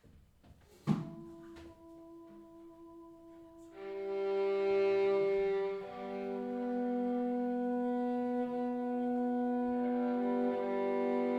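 Bowed strings, cello and violin, playing long held notes in free improvisation: quiet at first, with one sharp struck note about a second in, then from about four seconds several sustained notes overlap and change pitch slowly, growing louder.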